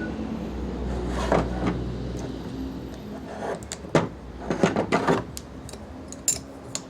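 Makita DJR360 reciprocating saw's tool-less blade clamp being worked as a blade is pushed in and pulled out: a series of sharp clicks and clacks, several in a quick cluster about four to five seconds in.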